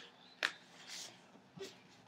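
Paper sticker being peeled from its backing sheet and handled: a sharp click about half a second in, a soft paper rustle around one second, and a smaller click about a second and a half in.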